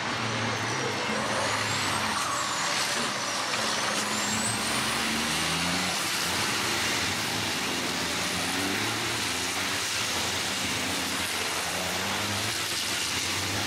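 Several racing trucks' diesel engines running hard through a corner, their engine notes climbing and dropping in steps. A high whistle rises and falls over the first few seconds.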